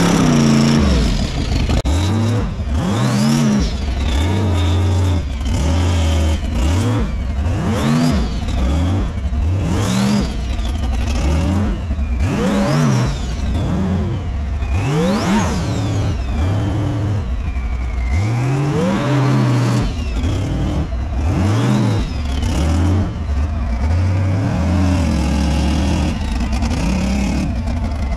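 A big off-road truck engine revving hard and dropping back, over and over, about every two to three seconds, under a steady low engine rumble.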